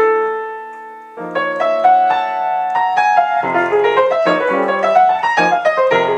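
Solo jazz piano: a chord dies away for about a second, then quick right-hand runs of short pentatonic melodic groups over sustained left-hand notes. The lines combine F minor and A major pentatonic scales, giving a deliberately dissonant, outside sound.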